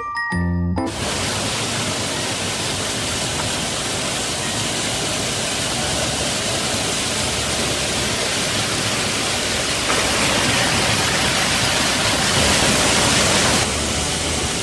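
Shiraito Falls, a wide curtain of thin streams over a rock wall, rushing steadily. The rush grows louder about ten seconds in and drops back shortly before the end. A short piano jingle ends just under a second in.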